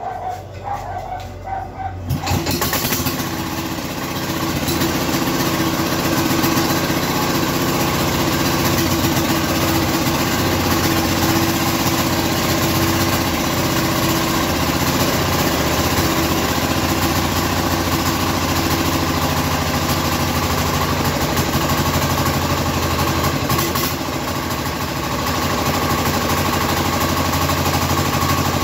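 Platinum 7.5 hp single-cylinder diesel engine starting up about two seconds in, then running steadily, with a brief dip in level near the end.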